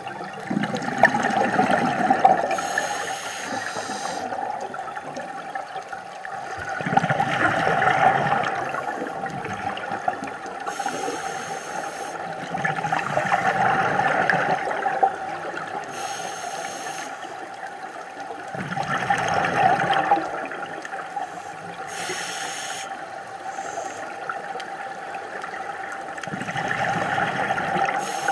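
Scuba diver breathing through a regulator underwater: a short hiss on each inhale followed by a longer bubbling gush on each exhale, repeating about every five to six seconds, over a steady hum.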